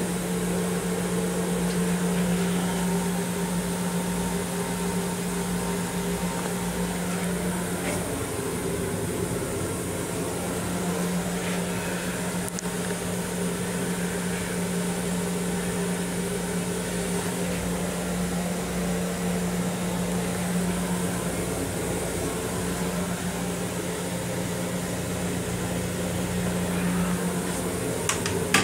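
Steady low hum of an M7 commuter railcar's ventilation system heard in its small restroom, over a low rumble. The hum weakens for a couple of seconds about eight seconds in and then returns; there is a light click near the end.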